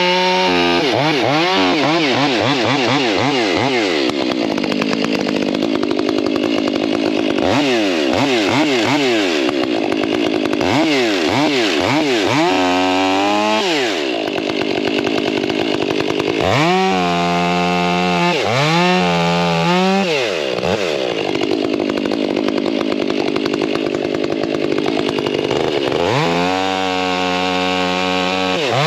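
Two-stroke chainsaw running hard, its engine pitch rising and falling several times as it is revved, with stretches of steady loaded running while it cuts into wood.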